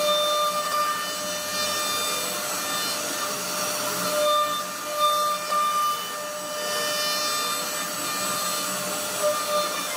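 CNC router spindle running with its bit carving a relief pattern into a wooden plank. A steady whine sits over the noise of the cut, swelling a little now and then as the bit moves through the wood.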